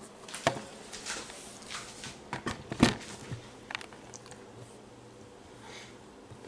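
A scatter of short clicks and knocks, as of objects being handled and set down, the loudest about three seconds in, followed by a quieter stretch with a faint steady hum.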